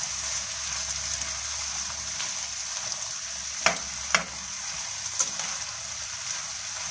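Diced meat and vegetables with tomato paste sizzling steadily in a non-stick frying pan while a metal spoon stirs them. A few sharp clicks of the spoon against the pan come past the middle.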